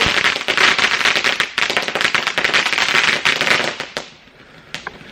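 Garden firework fountain spraying sparks with a dense hiss and rapid crackling, dying away about four seconds in.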